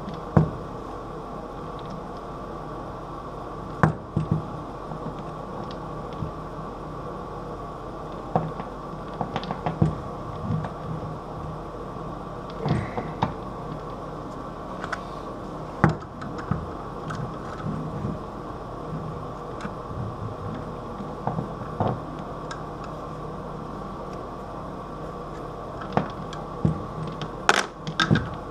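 Scattered small clicks and knocks of hands threading and handling a plastic water supply fitting under a toilet tank, with several sharper knocks near the end, over a steady hum.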